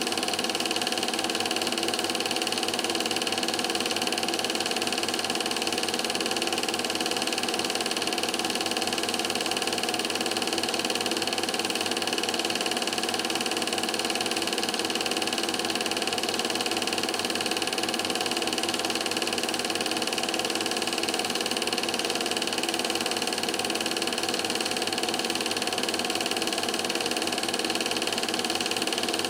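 Film projector running: a steady mechanical whir with a constant hum, unchanging throughout, as heard when a silent Standard 8 film is transferred.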